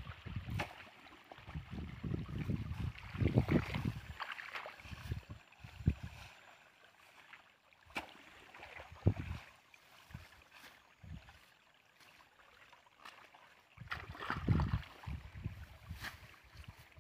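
Water sloshing and splashing, with grass rustling, as a long wooden pole is jabbed into the grassy edge of floodwater, over gusts of wind buffeting the microphone. A few sharp knocks come midway through.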